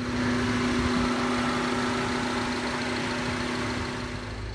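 2015 MINI Cooper S Countryman's 1.6-litre turbocharged inline four-cylinder engine idling steadily with an even hum.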